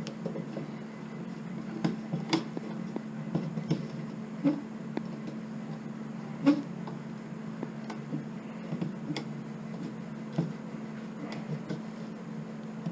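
Scattered light clicks and knocks of a Phillips screwdriver and metal hardware being worked by hand as a screw is tightened into a nut on a sifter basket, over a steady low hum.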